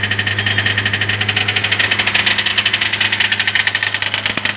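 Hyundai i20 1.4 common-rail diesel engine held at raised rpm by a scan-tool fuel leakage test, knocking with a fast, even rhythm. The knock is forced by the test through the injectors and high rail pressure.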